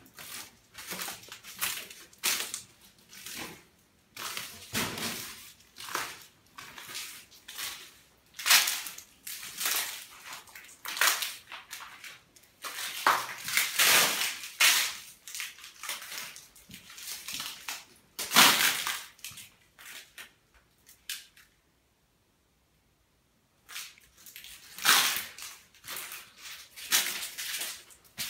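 Footsteps crunching on flakes of peeling paint littering a staircase, an irregular crunch every half second to second, stopping for about two seconds about three-quarters of the way through.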